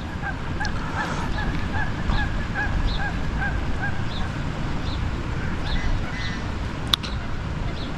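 Waterfowl honking: a run of short, repeated calls, two or three a second, thinning out near the end, over a low rumble. A single sharp click comes about seven seconds in.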